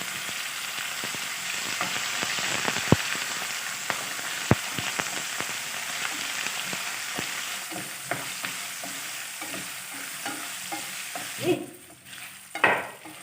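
Cut potatoes sizzling in hot oil with cumin and chillies in a kadai, stirred with a spatula that clicks and scrapes against the pan, with two sharp clinks about three and four and a half seconds in. Near the end the sizzle drops away briefly and a louder knock follows.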